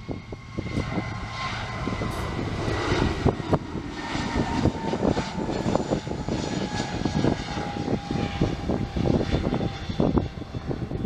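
Airbus A320neo jet engines running, with a whine that slowly falls in pitch over a steady rumble. Gusts of wind buffet the microphone.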